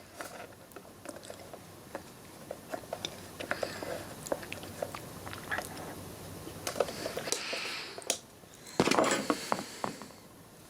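Handling noise from unpacking a new soldering station: scattered small clicks and rustles, with a louder crinkling rustle about nine seconds in.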